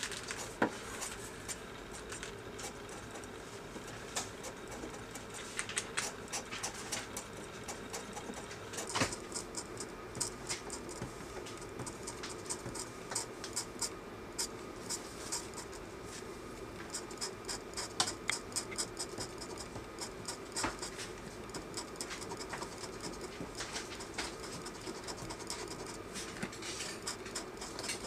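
Utility knife blade scraping and cutting screentone on a manga page: runs of quick, light scratching strokes with short pauses between them.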